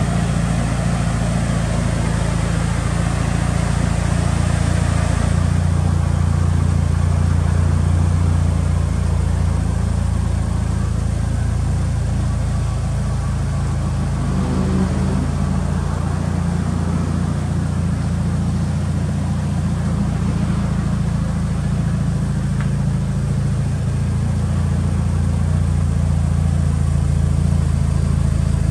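Mitsubishi Lancer Evolution VIII MR's tuned 4G63 turbocharged inline-four, a G-Force complete engine, idling steadily with a low, even note.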